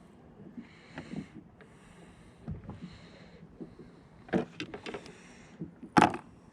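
Sounds on a fishing kayak: repeated short swishes of water, with a few sharp knocks on the hull. The loudest knock comes near the end.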